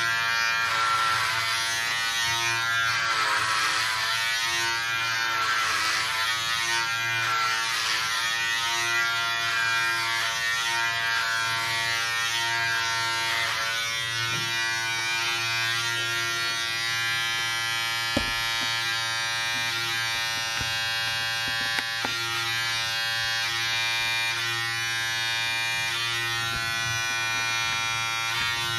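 Electric hair clipper running with a steady buzz while cutting hair on a head. Its sound is rougher and more uneven in the first half, while the blades pass through the hair. Two single sharp clicks come in the second half.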